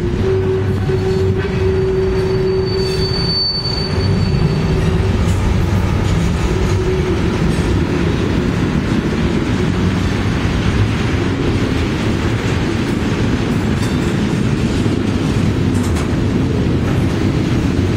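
Freight train cars (boxcars and tank cars) rolling past close by, a steady loud rumble and clatter of steel wheels on rail. A high, thin wheel squeal rings out for a couple of seconds early in the passage, over a lower held tone that fades out about four seconds in.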